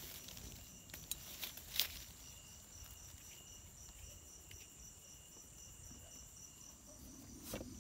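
Night insects trilling steadily: a high, evenly pulsed trill throughout, joined about two seconds in by a lower steady tone. A few faint clicks and leaf rustles come from a hand plucking a small mushroom from the litter.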